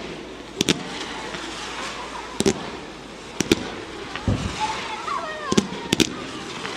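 Aerial fireworks shells bursting: sharp bangs, mostly in quick pairs, every second or two over a steady hiss, with a deeper thump about four seconds in.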